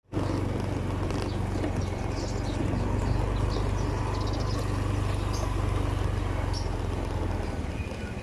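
Motorbike engine running steadily at low speed under the rider, with road and wind noise. Short high chirps come in now and then.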